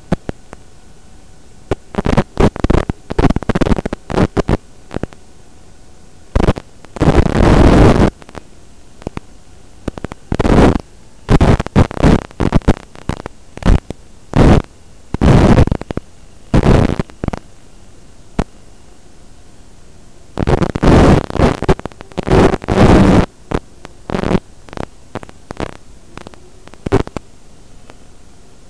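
Steady static hiss broken by irregular loud bursts of rough noise, some brief and some lasting a second or more, on the audio of an FPV racing drone's first-person video recording.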